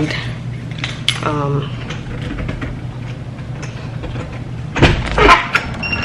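Handling noise and clatter from a handheld camera as the person carrying it moves about, over a steady low hum. There is a loud thump with clicks about five seconds in, and a short high beep near the end.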